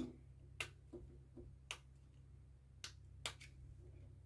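A few faint, sharp clicks at irregular intervals from a small insulated screwdriver and wire leads being handled at the terminals of a relay circuit, over a low steady hum.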